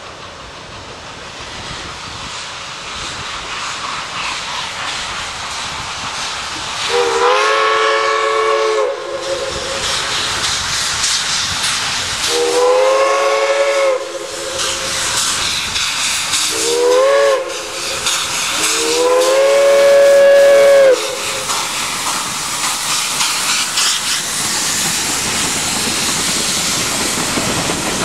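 Prairie Dog Central's steam locomotive No. 3, a 4-4-0, blowing its chime whistle four times in the long-long-short-long grade-crossing signal, over the steady hiss of its working exhaust, which grows louder as the engine draws close.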